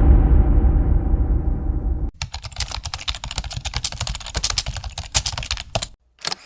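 The low rumble of a boom sound effect fades out over the first two seconds, then computer keyboard typing sound effect: rapid key clicks for about four seconds. A brief swish near the end.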